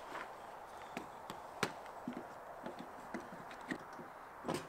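Scattered light clicks and knocks, about a dozen irregular taps over a faint steady hiss, from handling a garden-type water hose and its fittings at a campsite hookup post. The sharpest knocks come about a second and a half in and just before the end.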